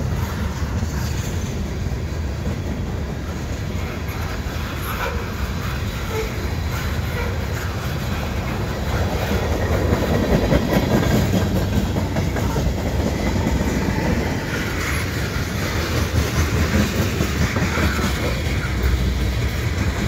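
CN freight train's tank cars rolling past at speed: a steady noise of steel wheels on the rails, a little louder about halfway through.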